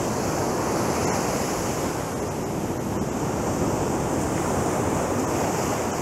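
Sea surf breaking on the beach: a steady, even rush of waves washing up the shore.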